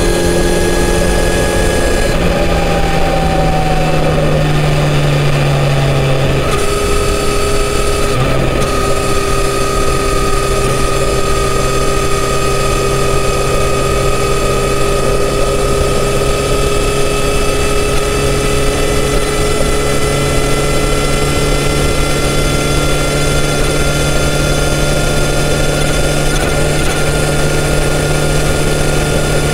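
Kawasaki Z900RS inline-four engine through its stock exhaust, cruising at expressway speed with wind rush on the mount-cam microphone. The engine note eases down for a few seconds, picks up again about six seconds in, and then climbs slowly as the bike gains speed.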